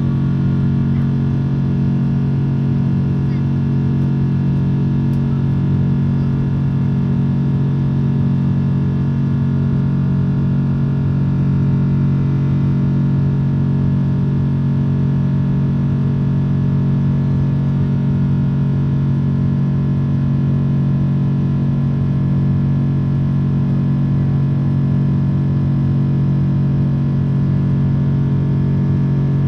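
Steady drone of a Boeing 777-300's jet engines heard inside the passenger cabin in flight: an unchanging low hum with several fixed tones over a rushing noise.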